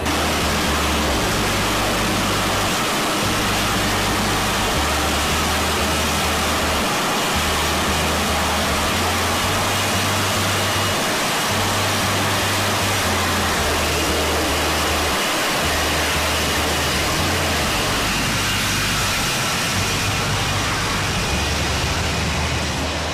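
F-35B in hover with its lift-fan doors open, the jet engine and lift fan making a loud, steady rushing noise with a faint high whine. Background music with a steady pulsing bass plays underneath.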